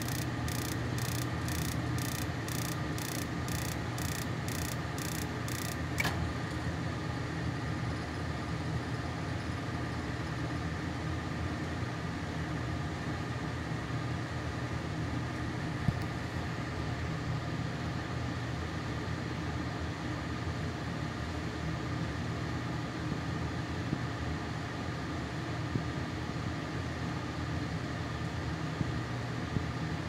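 Gas furnace running with a steady hum. Over the first six seconds there are sharp regular ticks, about two a second, typical of a spark igniter, which stop abruptly about six seconds in.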